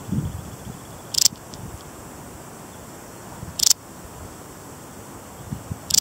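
Balearic saddle bush-cricket (Parasteropleurus balearicus) stridulating: three short, high-pitched chirps, a little over two seconds apart.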